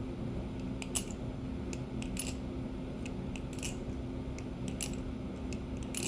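Latchless butterfly knife (TheOne Kraken clone balisong) being flipped: irregular sharp metallic clicks as the handles and blade swing and knock together, the loudest about a second apart.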